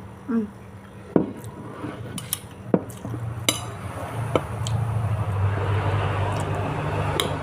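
Metal spoon clinking against a dish while eating, several separate sharp clinks a second or so apart, with a low steady hum behind from about three seconds in.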